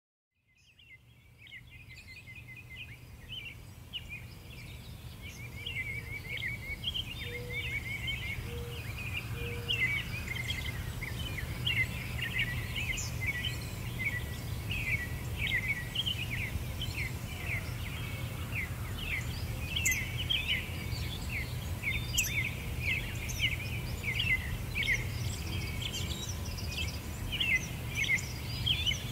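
Dense chorus of many small birds chirping and twittering in quick high notes, over a steady low rumble. It fades in from silence over the first several seconds and then holds steady.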